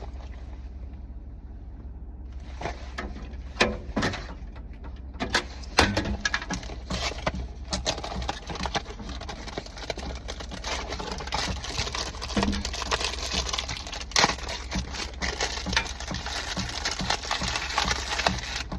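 A box being opened and a wrapper crinkled and torn open by hand: many small irregular crackles and rustles that start about two seconds in and grow almost continuous. A low steady hum runs underneath.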